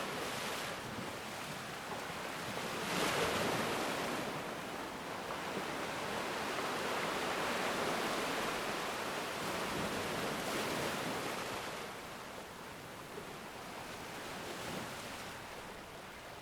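Ocean waves breaking and washing on a shore, a steady surf that swells and recedes, with a surge about three seconds in and a long swell in the middle.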